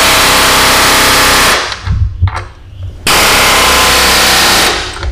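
Pneumatic air chisel hammering rapidly against a truck's steel frame, knocking off the last of a drilled-out spring hanger bracket. It runs for about a second and a half, stops for about as long with a few knocks, then runs again briefly.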